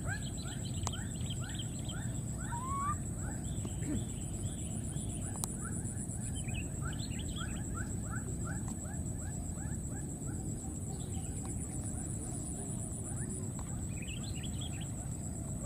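Outdoor ambience: runs of short, rapid chirping calls, about three a second, over a steady high insect buzz and a low background rumble.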